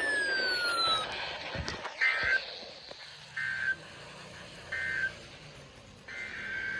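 Emergency Alert System SAME header: four short bursts of shrill digital data tones about 1.3 s apart, the last one longer, over a low hiss. A falling whistle fades out about a second in and is followed by two clicks.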